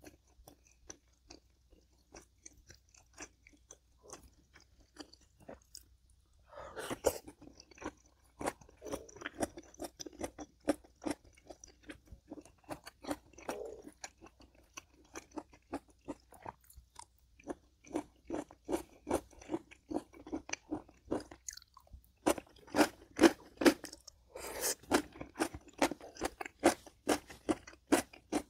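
A person chewing food close to the microphone, with crunchy bites at about three chews a second. The chewing is soft at first and gets louder about six seconds in, with a couple of short pauses.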